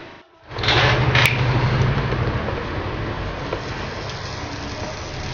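A steady low machine hum with a hiss, coming in after a brief silence at the start, with a single sharp click about a second in.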